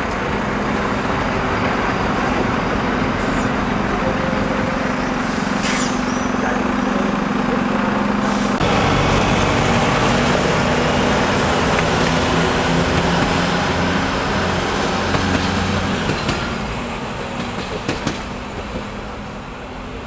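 ČD RegioSpider (Stadler Regio-Shuttle RS1) diesel railcar passing and pulling away, its underfloor diesel engine running with a steady hum. The engine note changes abruptly about eight seconds in, and the sound fades in the last few seconds, with a few sharp knocks near the end.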